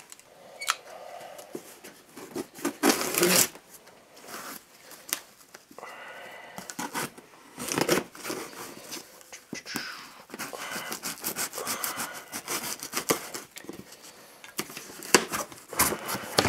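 Packing tape being cut and ripped off a long cardboard box, then the cardboard flaps pulled open: irregular tearing and scraping of tape and cardboard, with a few sharp knocks near the end.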